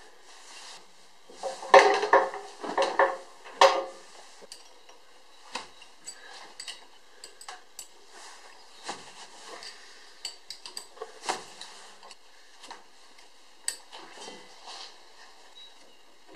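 Metal clinks, scrapes and taps of a hand tool and a steel knife being worked loose from a stopped planer's cutterhead during a knife change. There is a cluster of louder scraping clinks in the first few seconds, then scattered light taps.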